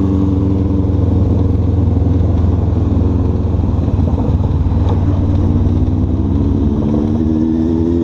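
Honda CB500F's parallel-twin engine running at low road speed, with the tyres rumbling over cobblestones. The engine note rises near the end as the bike picks up speed.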